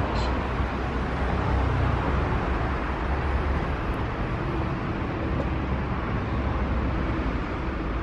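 Street traffic noise: a steady low rumble of motor vehicles, with no single distinct event.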